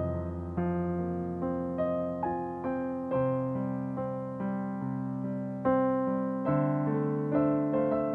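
Digital piano playing a slow, gentle piece: held bass notes under chords and single melody notes, a new chord struck about once a second and left to ring.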